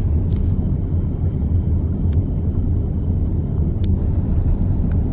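Steady low rumble of a car driving, heard from inside the cabin, with a few light clicks.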